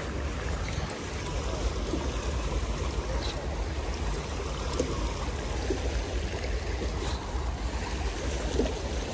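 Shallow creek water rushing steadily over a gravel bed.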